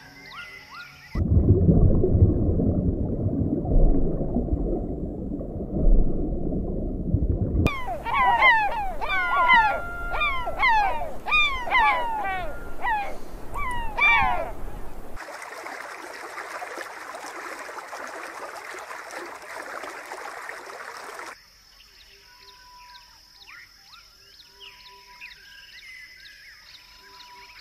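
Several separate animal recordings in a row: first a loud low rumbling noise, then gulls calling with a rapid run of falling cries for several seconds, then a steady hiss, and last a few faint short calls.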